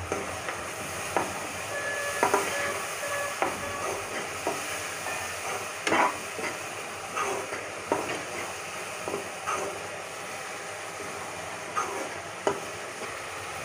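Spice masala sizzling in oil in a nonstick kadhai while a long metal spoon stirs it, giving irregular clicks and scrapes against the pan over a steady sizzle. The loudest scrape comes about six seconds in.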